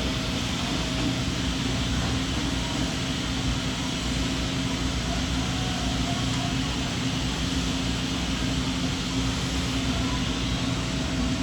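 Steady machinery hum with a low constant tone and even background noise, unchanging throughout, as from a CNC machine and shop equipment running.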